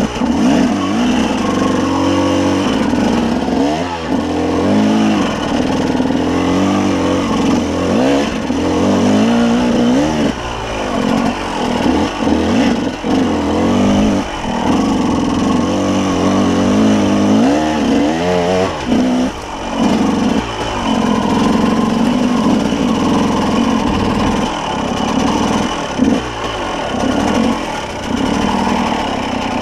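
Enduro motorcycle engine being ridden hard, revving up and dropping back again and again as the throttle is opened and closed.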